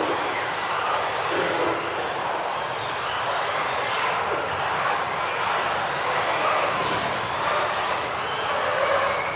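Several 1:10 electric off-road RC buggies racing, their motors whining up and down in pitch as they speed up and slow down, over a steady hiss of tyres on the carpet.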